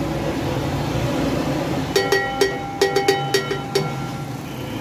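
About eight quick knocks of a bowl against the rim of an aluminium cooking pot, knocking out the last of the onion paste, each leaving a short metallic ring. A steady low hum sits underneath.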